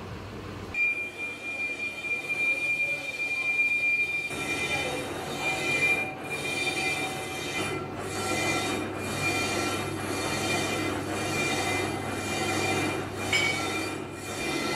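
Lathe turning a cast-iron truck brake drum while the cutting tool resurfaces its inner braking surface. A steady high-pitched metal squeal from the tool on the drum starts about a second in, over the lathe's low running hum, with a faint pulsing about once a second later on.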